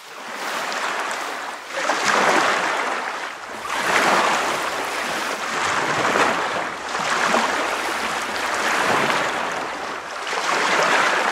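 Ocean waves washing in repeated swells, each rising and falling over about two seconds.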